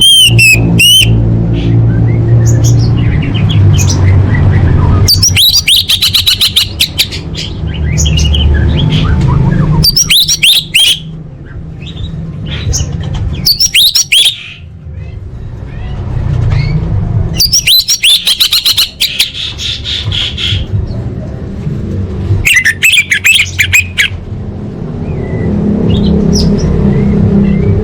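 Orange-headed thrush (anis merah) singing in bursts of rapid high chirps and whistles every few seconds, over a steady low rumble.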